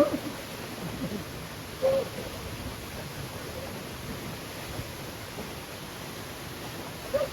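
Waterfall rushing steadily, with two short hoot-like calls, about two seconds in and near the end.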